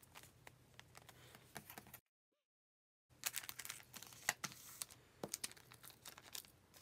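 Clear plastic bags crinkling and rustling as acrylic keychains are handled and slipped into them, with small clicks and taps. About two seconds in the sound drops out to dead silence for about a second.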